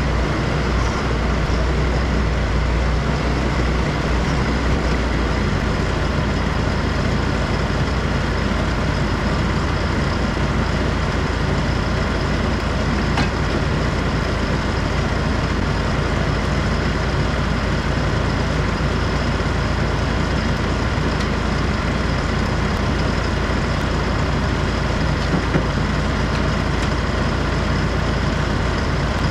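Fendt tractor's diesel engine running steadily at idle, a deep even rumble that eases slightly about five seconds in.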